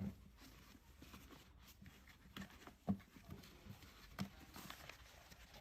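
Scattered light knocks and clicks, the loudest about three seconds in, over a faint low hum.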